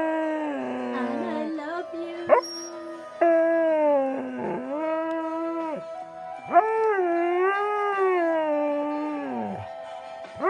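Husky howling along to music: long drawn-out howls of a few seconds each, wavering in pitch and sliding down at the end of each. A short sharp upward yelp comes between the first and second howl, and a new howl starts at the very end.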